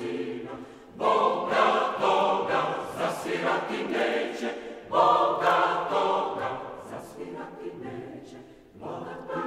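Mixed choir singing a cappella in a Serbian choral kolo. Loud phrases come in about a second in and again about five seconds in, each fading away, and a new phrase starts just before the end.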